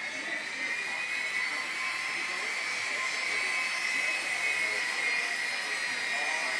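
Jet engines of a taxiing Boeing 757 airliner making a steady high whine. The whine rises slightly in pitch and grows louder over the first second or two as the plane comes closer, then holds.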